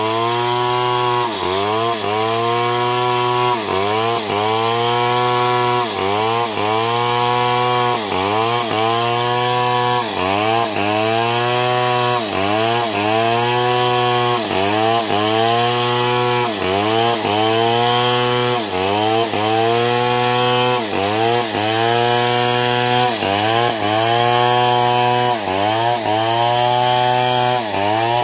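Stihl two-stroke chainsaw ripping lengthwise through a coconut log at high revs. The engine pitch dips and climbs back about once a second as the chain loads up in the cut.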